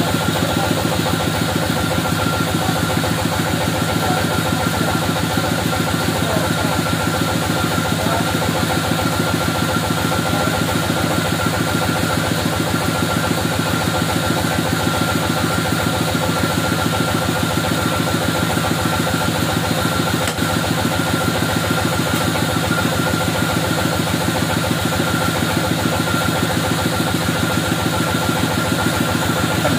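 Homemade bandsaw sawmill driven by a HAITA engine, running steadily. There is a fast, even engine pulse and a steady high whine.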